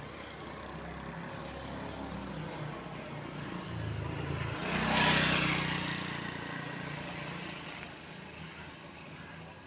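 A motor vehicle passing by: engine hum and road noise build to a peak about five seconds in, then fade away.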